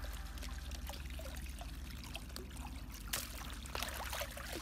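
Water pouring from a plastic pipe, trickling and splashing through a plastic basket into a plastic tub, with a sharper splash about three seconds in.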